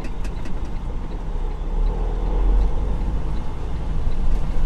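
Freightliner Cascadia semi truck's diesel engine pulling away from a stop, its low rumble building as the truck accelerates. A few faint clicks near the start.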